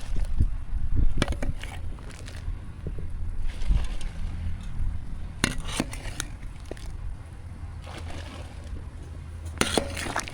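Steady low rumble of wind buffeting the microphone, with a few short scrapes and knocks: one about a second in, one around the middle and one near the end.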